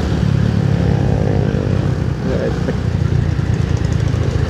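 Motorcycle engine pulling under throttle while riding, its pitch rising in the first second or so, over a heavy steady low rumble of wind and road noise.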